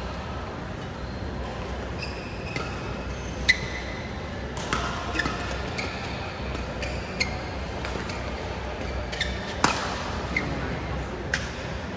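Badminton rally: rackets striking the shuttlecock with sharp cracks, about eight hits, the loudest about three and a half and ten seconds in, with short squeaks from court shoes on the mat, over a steady low hum.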